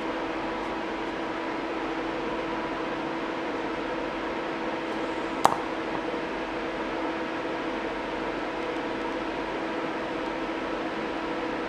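TIG welder running steadily while welding a crack in a Subaru alternator guard's broken mount: an even hum with a hiss. A single sharp click comes about halfway through.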